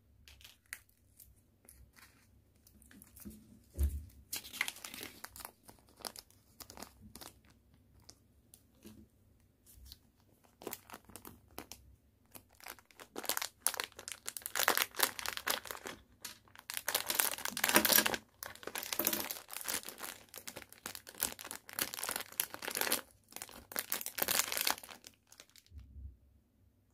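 Clear plastic bag crinkling as it is handled and opened, in dense stretches through the second half, stopping shortly before the end. In the first few seconds there are scattered clicks of small plastic parts, and a thump about four seconds in.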